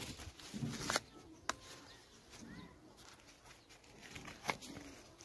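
Disposable cup being torn open by hand, crackling for about the first second, then a sharp click and light handling noises; pigeons coo faintly.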